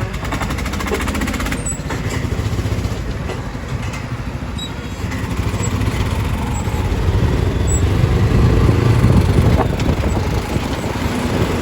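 Golf cart ride: steady low rumble of the moving cart and its tyres on the road, with wind on the microphone. It swells louder for a few seconds past the middle.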